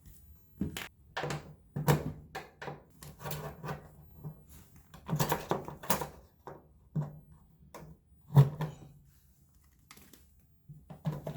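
Irregular clicks, taps and knocks of a washing machine's plastic panel being handled and worked at by hand.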